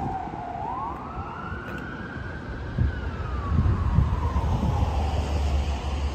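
Ambulance siren wailing: one slow rise in pitch, then a long slow fall. A low rumble comes in under it about halfway through.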